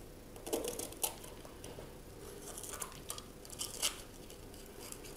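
Small knife cutting around the stem of a crisp green sweet pepper, with faint crunches and scrapes at intervals and a few sharper crunches, one about a second in and one nearly four seconds in.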